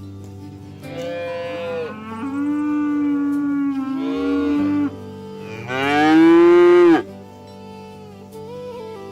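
Cattle mooing: three drawn-out moos, the last and loudest one lasting just over a second, with music playing underneath.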